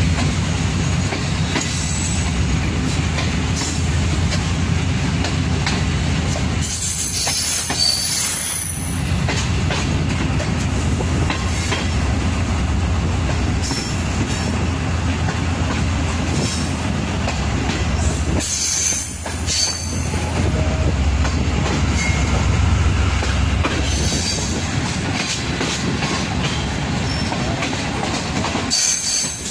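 Passenger train coach running over the rails through a station yard, heard from the open side of the coach: a steady rumble with wheels clacking over rail joints and points. The wheels squeal briefly twice, about a quarter of the way in and again past halfway.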